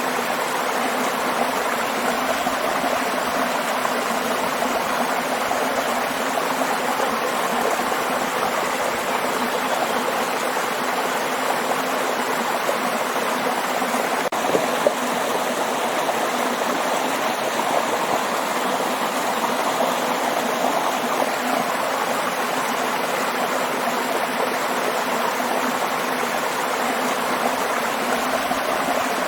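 Waterfall water rushing steadily, with a single faint click about halfway through.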